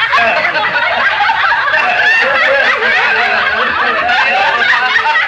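A table of dinner guests laughing together, several voices chuckling and laughing at once without a break, in reaction to a joke. The sound comes from an old 1930s film soundtrack.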